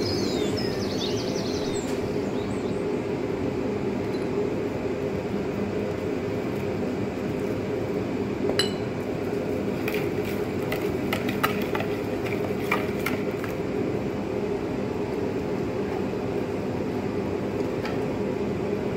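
A few light clinks and taps of a spoon and wire whisk against the mixing bowl as sugar and cornstarch go into the sauce, most of them bunched in the middle, over a steady low background hum.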